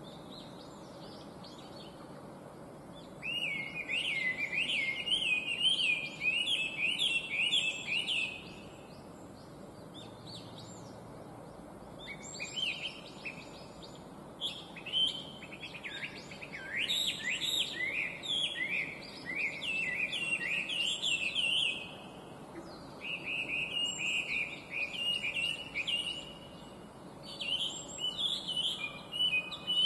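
Chinese hwamei singing: loud, rich phrases of rapidly repeated rising-and-falling whistled notes, several seconds long, with short pauses between them. Fainter high chirps of other birds sound in the background.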